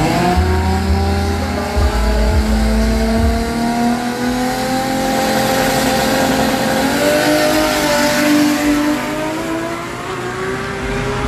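Drag-racing car engine accelerating hard, its pitch climbing steadily as it pulls away, with a break and change in pitch about seven seconds in, like a gear change.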